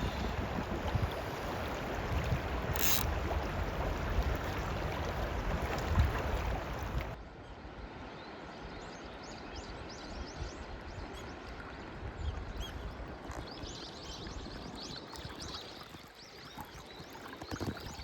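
Loud rushing noise of wind buffeting the microphone over flowing water. It cuts off abruptly about seven seconds in, leaving a quieter steady river hush with many short, high-pitched chirps.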